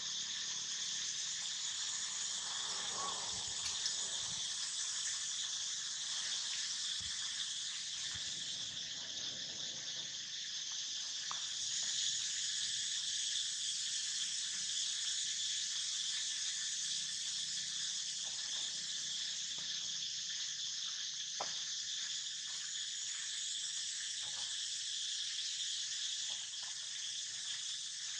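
Steady high-pitched drone of an insect chorus, unbroken throughout, with a few faint small clicks and rustles beneath it.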